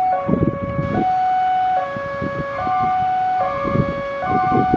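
Railway level-crossing warning siren, the crossing's new electronic two-tone siren, alternating steadily between a higher and a lower note, each held a little under a second, with low rumbling noise underneath. It sounds while the crossing is closed for an approaching train.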